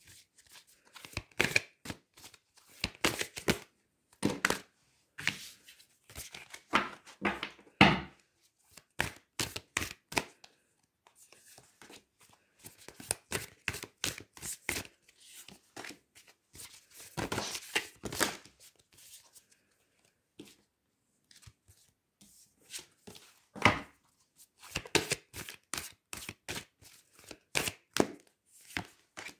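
A deck of large oracle cards being shuffled by hand: an irregular run of card slaps and soft rustling as the cards slide over each other, with single cards laid down on a wooden table now and then.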